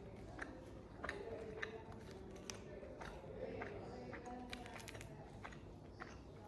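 Someone eating thin-crust pizza: quiet chewing with scattered small crunchy clicks and bites.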